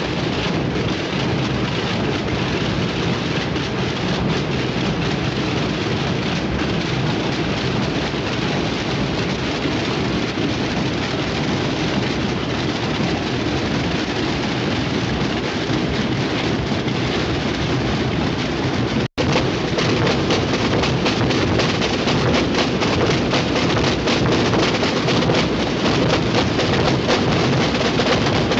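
Many drums and bass drums of the Bajo Aragón Holy Week drumming playing together in a dense, continuous rolling din, broken by a momentary dropout about two-thirds of the way in.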